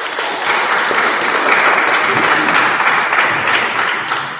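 Congregation applauding: many hands clapping in a dense, steady patter that fades out near the end.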